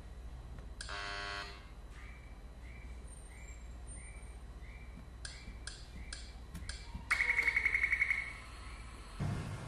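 Electronic feedback sounds of a touchscreen test computer: a short buzzer tone about a second in, faint high beeps about twice a second, a few sharp clicks, then a loud rapidly pulsing chime lasting about a second, about seven seconds in. A thump and a low hum start just before the end.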